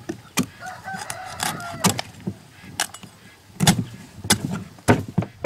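Fowl calling, one short call between about one and two seconds in, among about eight sharp knocks at irregular intervals.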